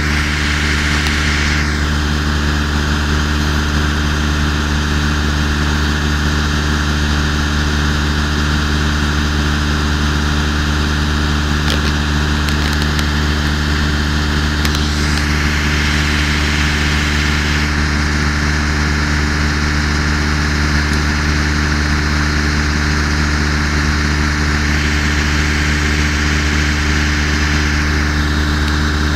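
A large engine idling steadily at constant speed, a low even drone that does not change throughout.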